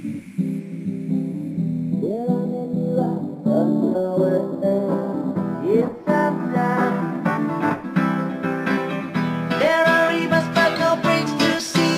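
Music led by acoustic guitar, plucked and strummed, with notes that slide up in pitch every few seconds.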